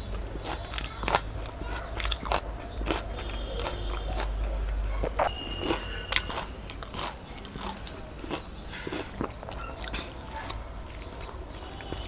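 Close-up eating sounds of someone eating by hand: chewing and wet mouth clicks coming irregularly several times a second, with fingers mixing rice on a steel plate.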